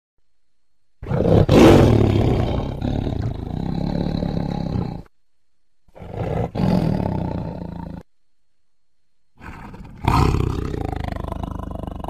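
Tiger roaring in three separate bouts: a long one of about four seconds, a shorter one mid-way, and a third that starts near the end, with silence between them.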